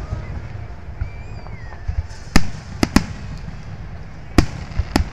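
Aerial fireworks shells bursting with sharp bangs over a steady low rumble: one bang about two and a half seconds in, a quick pair just before three seconds, and two more between four and five seconds.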